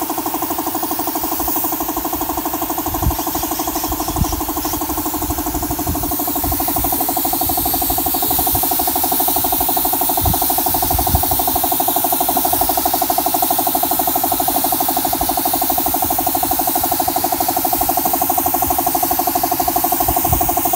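Air compressor running steadily, with a fast even pulse, under the constant hiss of an air spray gun spraying a wood finish. A couple of low bumps about three and four seconds in.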